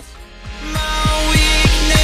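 Background electronic music building up: a noise sweep swells louder over steady kick drum beats, about three a second, and a deep bass.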